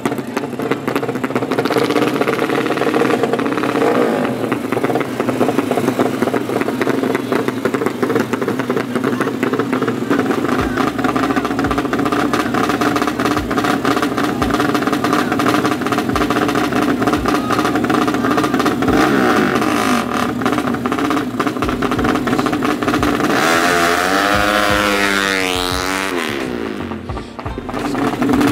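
Drag-race motorcycle engines running and revving, mixed with background music; about three quarters of the way in the pitch sweeps sharply down and back up.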